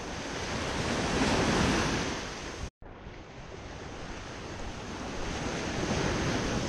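Surf breaking and washing up on a sandy beach, with wind on the microphone. The wash swells about a second in, the sound drops out for an instant just before the middle, and it builds again near the end.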